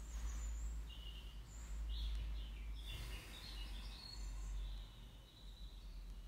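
Quiet room background: a low steady rumble with scattered short, faint high chirps.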